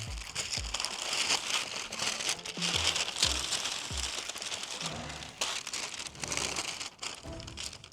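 A creased paper template being unfolded and handled, crinkling and rustling steadily, with a few soft low thumps as it is laid down.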